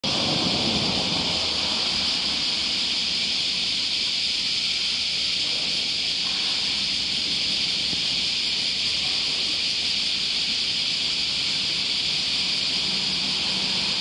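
Steady outdoor street ambience: a continuous high-pitched hiss over a faint low rumble of traffic, a little louder in the first second or so.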